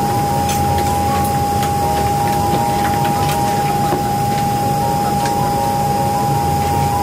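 Steady cabin noise inside a Boeing 737-900ER before takeoff: a constant low hum with a loud, even whine held on one pitch, and a few faint clicks.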